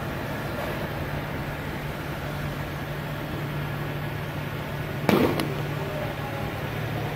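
Distant twin-engine jet airliner's engines running steadily on the runway. About five seconds in, a sharp knock and a smaller click just after it, the loudest sound here.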